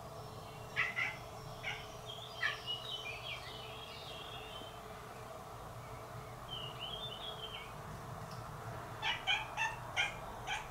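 Eurasian magpies giving harsh, rattling alarm chatter in several bursts, scolding a cat near their fledgling. Short cat cries mix in with a fast run of calls near the end.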